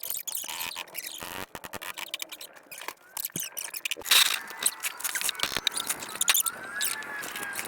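Irregular clicks, clinks and scraping of tools and metal parts being handled, with a louder scrape about four seconds in and a few short squeaks near the end.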